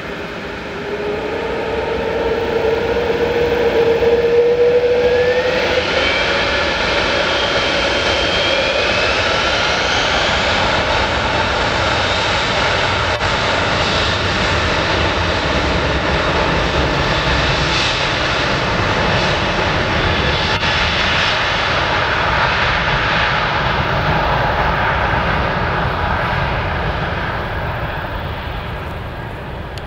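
Emirates Airbus A380-800's four jet engines spooling up to take-off thrust: a rising whine over the first several seconds, then steady loud jet noise through the take-off run and climb-out, dropping away near the end.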